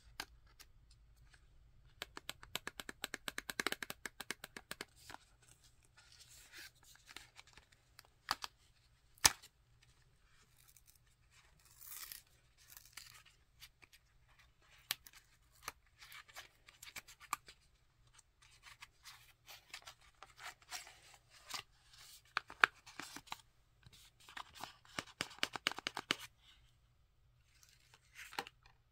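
Hands opening a small cardboard eyeliner box: crackling and tearing of the packaging with sharp clicks and scrapes. There is a dense run of crackling about two seconds in, a few single loud snaps, and another busy stretch near the end.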